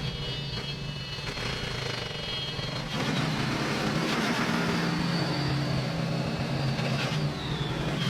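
1988 Scania dump truck's diesel engine running steadily, getting louder about three seconds in and then holding.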